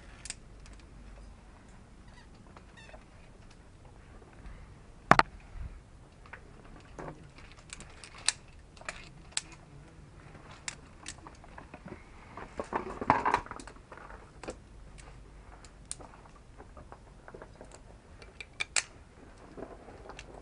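Irregular clicks, clinks and scrapes of via ferrata climbing gear and boots on rock during a descent, with a sharp knock about five seconds in and a burst of scraping and rustling around the middle.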